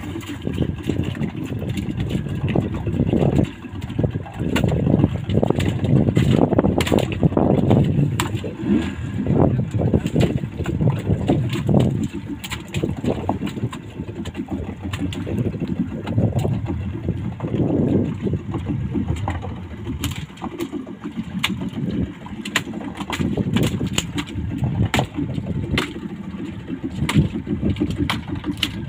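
Wind buffeting the microphone over open sea in a small open fishing boat, a gusty low rumble that swells and falls, with scattered sharp clicks and knocks throughout.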